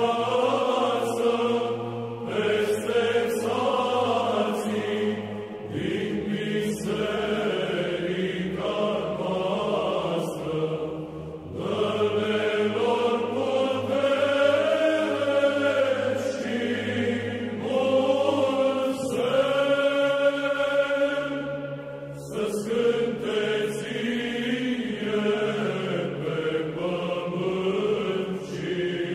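Background music of chanted singing: voices carry a slow melody over a steady, held low drone note, in phrases of several seconds.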